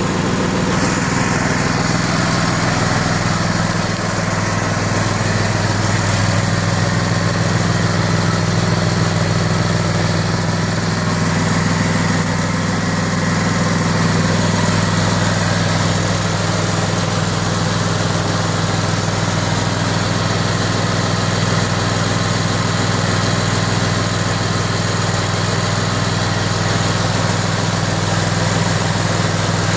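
Small recoil-start engine running steadily while it belt-drives a 24-volt, 65-amp marine alternator under a light charging load, during the engine's break-in run.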